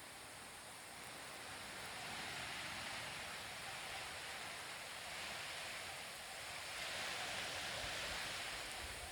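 Faint, steady rushing noise that swells and eases gently a couple of times, with no distinct events.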